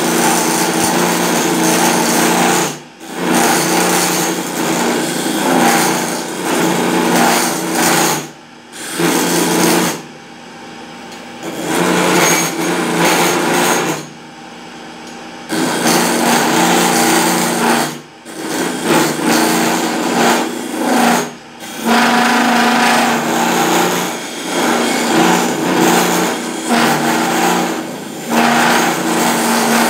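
Wood lathe's electric motor running with a steady hum while a hand turning chisel cuts the spinning wooden spindle, a dense scraping rasp. The cutting breaks off briefly several times as the tool lifts off the wood, longest about a third and halfway through, leaving the motor hum.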